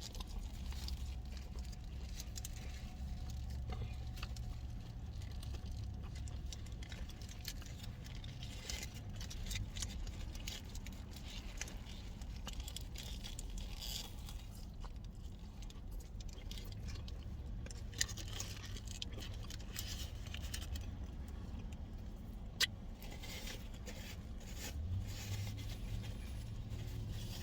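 A person chewing and eating a burger, with small wet clicks and paper-wrapper crinkles, over the low steady hum of a car. Two sharper ticks stand out about 18 and 23 seconds in.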